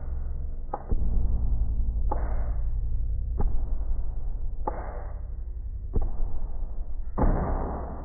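Unidentified rhythmic noises: sharp clicks alternating with short whooshing bursts about every second and a quarter, the longest and loudest burst near the end, over a low steady hum.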